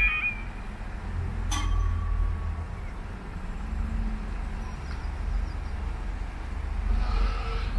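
Level crossing's warbling yodel alarm cutting off just after the start as the barriers finish lowering, which is the usual sign that they are fully down. Then a single sharp clunk and a steady low outdoor rumble.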